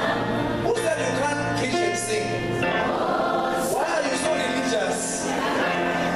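A choir singing gospel music, many voices together over sustained low notes.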